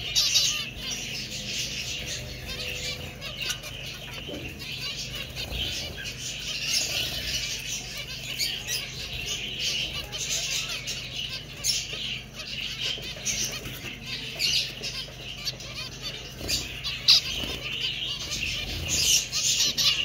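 An aviary flock of zebra finches chattering, many short nasal calls overlapping without a break, with wing flutters as birds hop and fly between perches.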